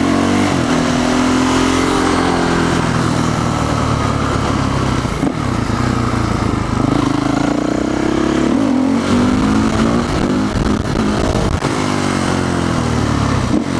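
Motorcycle engine under way, its pitch rising under throttle and dropping back several times, over steady wind rush on the microphone.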